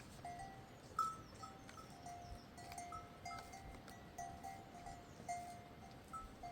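Sheep bells on a grazing flock clinking irregularly, several small bells of different pitch ringing faintly.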